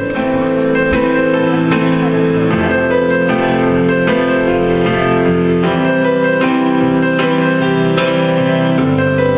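Instrumental song intro led by piano, with sustained chords underneath and notes struck in a steady pattern.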